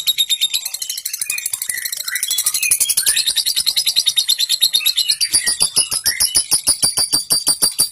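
Lovebird's long ngekek chatter: an unbroken, fast run of harsh, high 'kek' notes, about ten a second, with a few softer chirps mixed in during the first three seconds and again near the middle.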